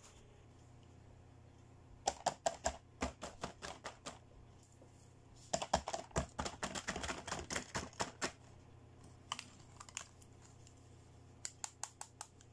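Hard plastic toys being handled and tapped, making quick runs of light clicks and taps. There are four runs, with pauses between them; the longest is in the middle.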